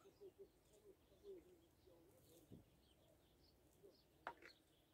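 Near silence with faint distant bird calls: a run of soft low wavering notes like cooing and a few high chirps, with one brief click about four seconds in.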